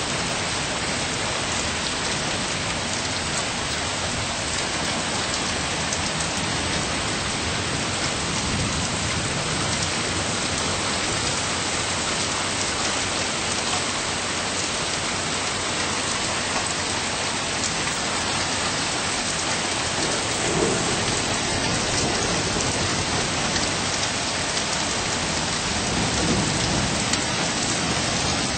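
Rain falling steadily, with thunder rumbling low twice, about two-thirds of the way in and again near the end.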